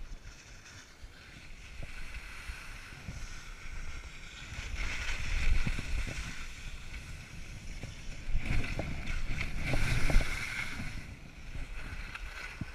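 Skis or board edges scraping over packed snow during a downhill run, with wind rushing on the microphone. The scraping swells twice, about five and nine seconds in, as turns are carved.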